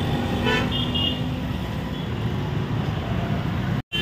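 Street traffic rumbling steadily, with a couple of short vehicle horn toots about half a second to a second in.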